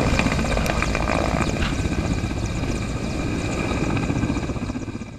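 Mi-8 twin-turbine helicopter flying away: steady rotor blade chop under a high turbine whine, growing slowly fainter, then fading out near the end.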